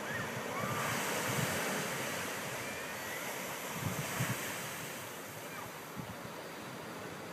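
Ocean surf breaking and washing up a sandy beach, a steady hiss that swells about a second in, with wind buffeting the microphone now and then.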